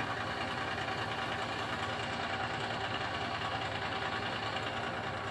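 Fire engine's engine idling steadily.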